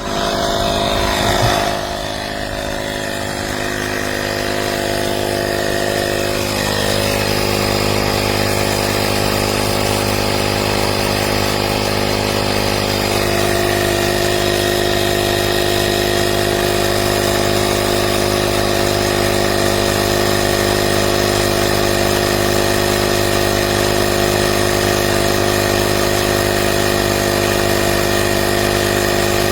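AstroAI 12 V portable electric tire inflator running steadily under load as its small piston compressor pumps up a car tire toward 35 psi. It is briefly louder about a second and a half in, and its pitch shifts slightly a couple of times.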